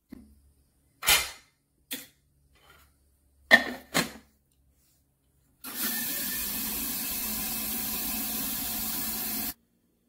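A few short knocks in the first four seconds, the loudest about three and a half seconds in. Then a benchtop jewelry tumbler-polisher runs with a steady whirring hiss for about four seconds, starting and stopping abruptly.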